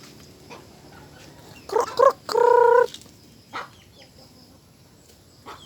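Chickens calling: two short squawks, then one louder held call about two and a half seconds in, and a fainter call about a second later.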